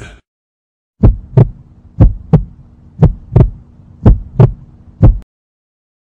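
Heartbeat sound effect: four double thumps, lub-dub, about one a second, then a single last beat, over a faint steady hum.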